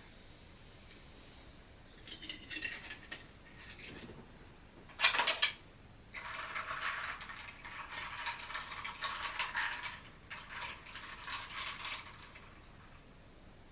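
Clinking of glassware and a metal utensil: a few sharp clinks, one louder clash about five seconds in, then several seconds of fast, continuous rattling that stops shortly before the end.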